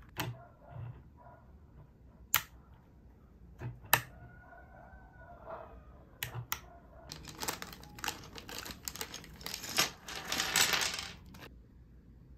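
Hard plastic clicks from a mechanical keyboard being handled on a desk: a few single sharp clicks, then about four seconds of dense clattering of loose plastic keycaps that stops suddenly.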